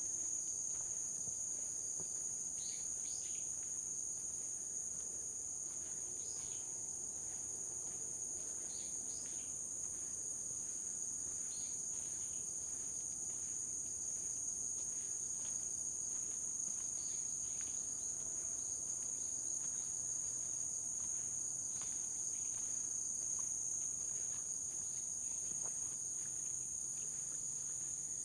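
A forest insect chorus, crickets or similar, keeps up a steady, unbroken high-pitched shrill. Short high calls that fall in pitch cut in every few seconds, mostly in the first half.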